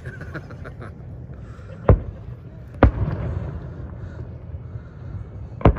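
Fireworks going off in the distance: three sharp bangs, the first about two seconds in, the next a second later and trailed by a lingering rumble, and a third near the end.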